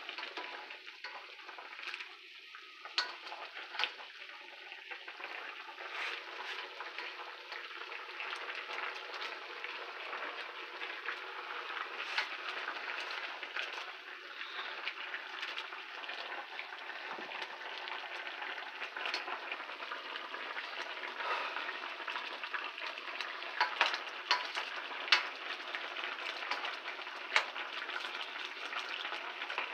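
Cubed pork shoulder sizzling steadily in its juices in a stainless steel pot while being stirred with a spoon, the spoon clicking against the pot now and then.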